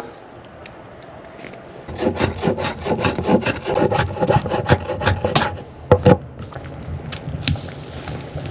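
Quick scraping strokes on wood, about four a second for a few seconds, followed by two sharper knocks and a softer scrape.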